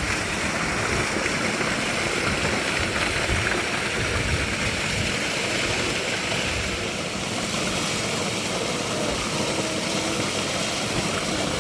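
Steady rushing of flowing spring water, an even noise without breaks.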